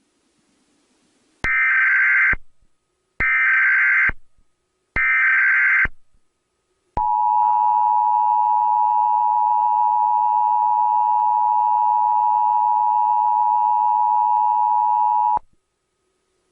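Emergency Alert System SAME header: three bursts of digital data warble, each about a second long, then the EAS attention signal, a steady two-tone alarm held for about eight seconds before it cuts off.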